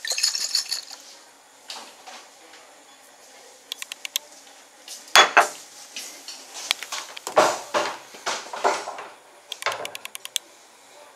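A glass flask of liquid shaken hard by hand for about a second, sloshing, to work air into the solution. This is followed by scattered glass clinks and several sharp knocks of glassware set down on a tile floor, the loudest about five seconds in.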